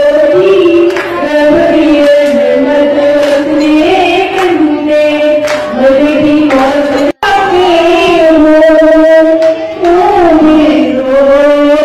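A woman singing into a microphone with long held, wavering notes. About seven seconds in, the sound cuts out for an instant, and a second woman's voice carries on the singing.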